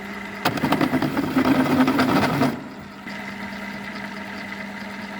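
Electric drill running steadily with a constant hum, its 24 mm bit cutting into a carbon-steel nut for about two seconds, louder and grinding, before it runs free again.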